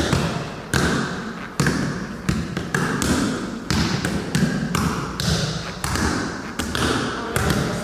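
Hands smacking game buttons in quick succession: a string of sharp, irregular slaps, about one or two a second.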